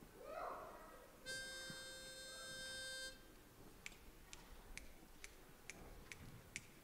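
A pitch pipe sounds one steady reedy note for about two seconds, giving an a cappella group its starting pitch, after a short sliding hum. Then faint sharp clicks follow at about two a second, keeping a tempo.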